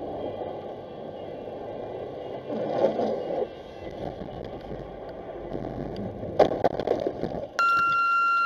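A car's tyre and road noise on a snow-covered road, with two louder bursts of crunching, rushing slush noise as the car ploughs through the snowy lane and skids, about three and six and a half seconds in. Near the end a loud, steady, high-pitched tone sounds for about a second and cuts off suddenly.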